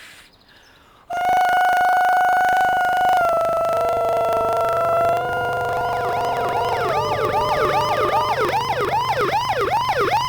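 Siren starting about a second in: a long held tone that drops slightly in pitch twice, then turns into a fast rising whoop that repeats about twice a second.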